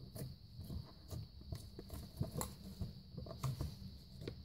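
Glitter slime made with borax and glue being pressed and poked with fingers, giving faint, irregular small clicks and pops.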